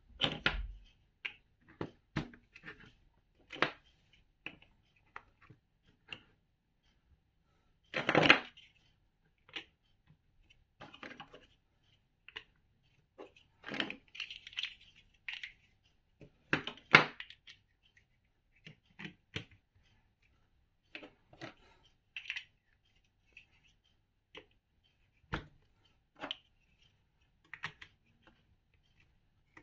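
Plastic building bricks being handled and pressed together: irregular sharp clicks and short rattles with pauses between them, and a louder rattle about 8 seconds in and again about 17 seconds in.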